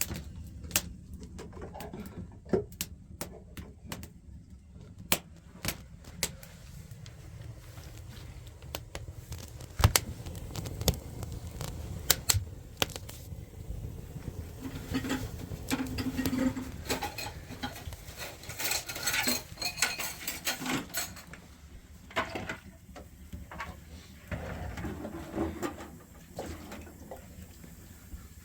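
Irregular sharp clicks and clinks of hard objects being handled, over a low steady rumble, busiest about halfway through.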